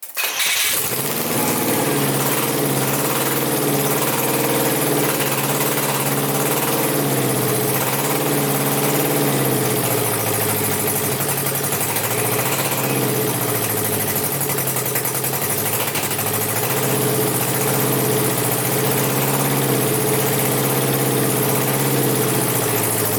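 Air-cooled Citroen GS 1.3 flat-four engine catching almost at once and running steadily at a fast idle, its revs rising and falling a little now and then. It is the engine's first run since its rebuild with two bent valves replaced.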